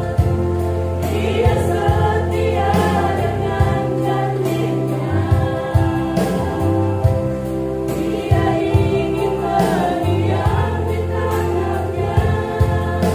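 A small group of women singing a gospel song together, over a musical accompaniment with sustained low bass notes.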